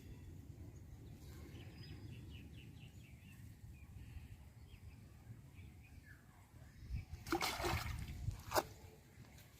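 Outdoor ambience with a steady low rumble, then a short burst of water sloshing and splashing about seven seconds in, followed by a sharp click.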